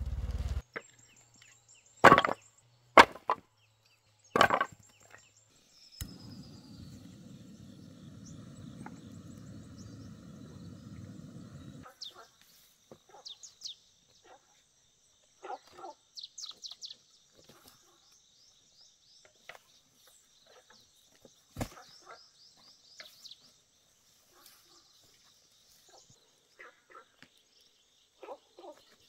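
Dry wood knocking and cracking: four loud sharp knocks in the first six seconds, then rustling, and scattered small snaps and cracks as a rotten tree stump is broken up and pushed by hand. High bird chirps sound in the background.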